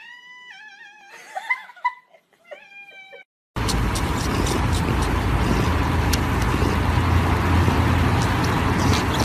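A kitten meowing several times in quick, high, wavering calls. About three and a half seconds in, a loud, steady rumbling noise with scattered clicks cuts in and continues.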